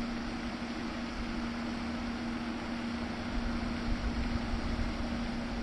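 Steady outdoor hiss under a constant low hum, with wind rumbling on the microphone and growing stronger about three seconds in.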